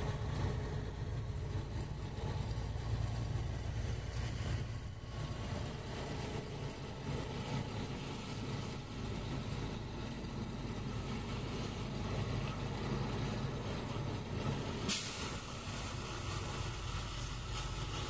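Truck's diesel engine running inside the cab as the truck turns slowly across a lot. A sudden hiss starts near the end and keeps going.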